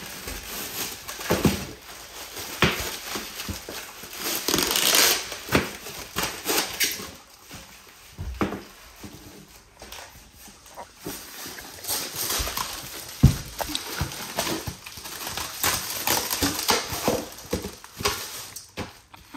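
Packaging rustling and crinkling as parts are handled and unpacked, with scattered knocks. One sharp knock about two-thirds of the way through is the loudest.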